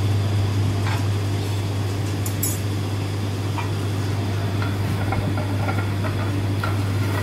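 A steady low hum of kitchen equipment runs throughout. Over it come faint crinkles and ticks of plastic cling film being handled and peeled off a plate of frozen carpaccio, more of them in the second half.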